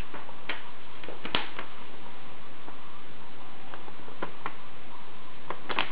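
A paper order slip being unfolded and handled: scattered light clicks and crinkles of paper, the loudest about a second and a half in, over a steady hiss.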